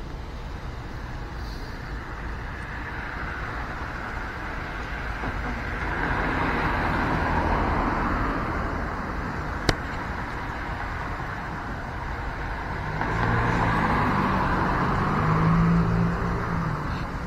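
Road traffic: a vehicle passes about six seconds in, and a second, with a low engine note, about thirteen seconds in, over a steady traffic hum. A single sharp click about halfway through.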